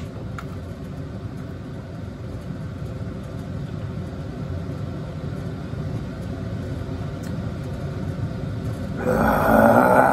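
A steady low rumble, then about nine seconds in a man's loud, breathy "ahh": a satisfied exhale after a swig of beer.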